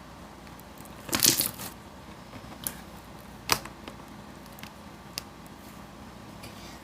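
Sticky slime being stretched and torn by hand, giving a burst of crackles about a second in and a few sharp clicks after. The slime is over-soft and rips easily.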